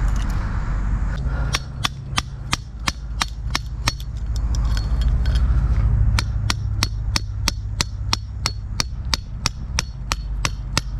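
A hammer driving a tent ground stake into the ground with quick, even blows, about four a second, starting about a second and a half in. A steady low wind rumble on the microphone lies under it.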